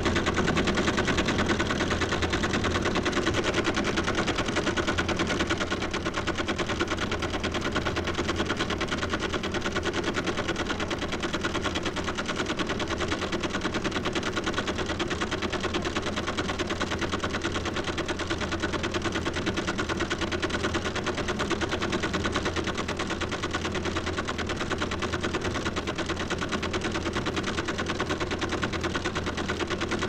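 Creed teleprinter printing at 100 words per minute: a fast, unbroken mechanical clatter of rapid, even strikes.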